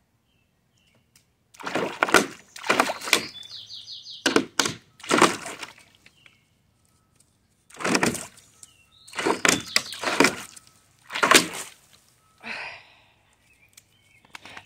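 A dog digging with its front paws in a shallow pool of water, splashing in loud bursts, mostly in quick pairs with short pauses between.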